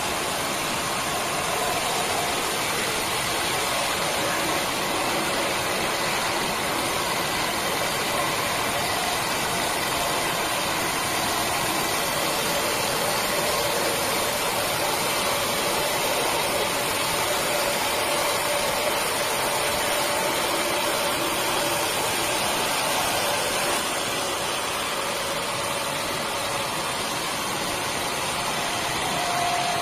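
Horizontal band sawmill running steadily, a continuous mechanical noise with a faint wavering whine.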